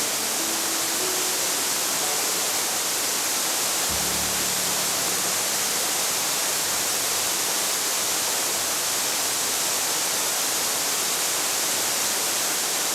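Mountain stream rushing, a steady even hiss of flowing water, with faint background music notes near the start and about four seconds in.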